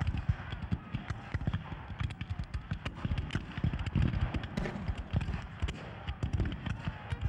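Massed black-powder musket fire: a dense, irregular crackle of shots and heavy low thumps, with men shouting among it.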